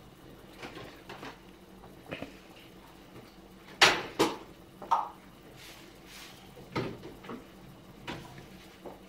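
A person burping several times in short, sudden bursts, the three loudest coming close together in the middle.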